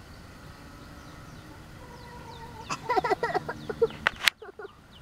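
Chicken clucking: a quick run of short, pitched calls starting about three seconds in and lasting about a second and a half, ending with a sharp click.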